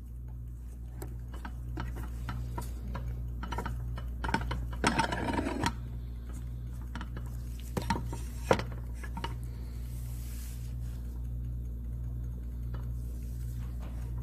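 Magnetic stir plate running with a stir bar spinning in a small glass beaker: a steady low hum with scattered light clicks of the bar against the glass. A brief scuffing noise comes about five seconds in.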